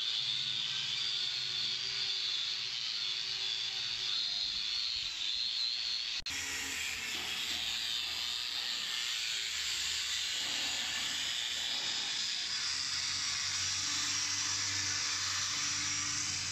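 Corded angle grinder running against a steel door frame, its wheel scouring off old paint and rust in a steady hiss. The sound breaks off for an instant about six seconds in and comes back brighter and harsher.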